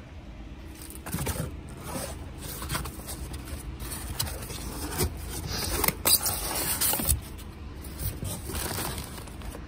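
Irregular scraping and knocking of discarded appliance parts being handled and moved about, loudest about two-thirds of the way through, over a steady low rumble.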